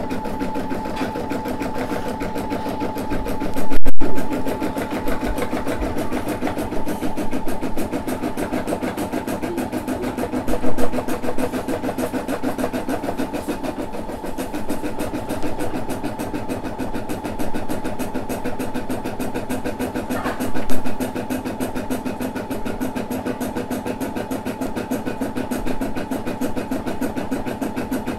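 Brother SE600 embroidery machine stitching a design: the needle runs at a fast, even rate over the steady hum of the motor. A few brief louder bumps stand out, the loudest about four seconds in.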